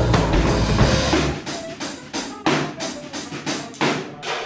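Organ trio of organ, drum kit and saxophone playing a groove with a heavy low end; about a second and a half in the bass drops out and the drum kit carries on alone with separate hits, a drum break.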